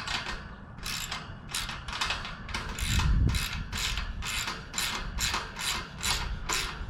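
Socket ratchet wrench tightening a bolt on a bike basket mount, its pawl clicking in quick, even strokes about three a second.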